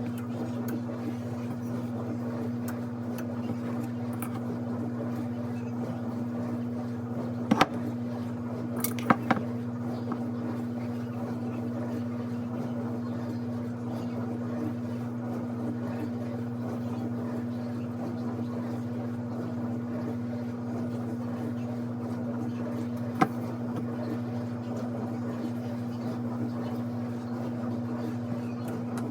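A steady electrical hum from a kitchen appliance or fan motor, at one low pitch with an overtone, with a few short sharp knocks or clinks: a pair about a quarter of the way in and one more past the middle.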